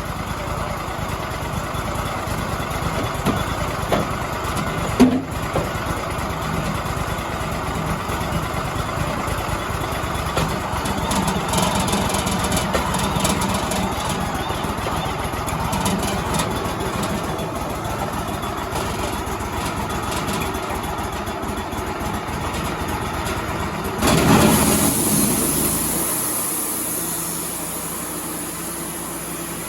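Wood-Mizer LT35 portable band sawmill running steadily under engine power, with a sharp knock about five seconds in. Near the end there is a sudden hissing surge, then the engine settles to a quieter, steadier idle.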